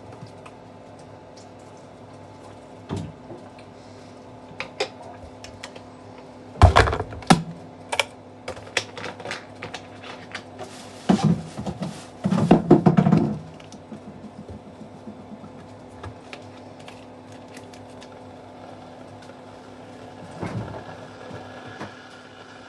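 Kitchen handling noises: irregular clicks and knocks over a faint steady hum. About halfway through comes a louder run of crackling as a plastic water bottle is handled and crumpled over a bin.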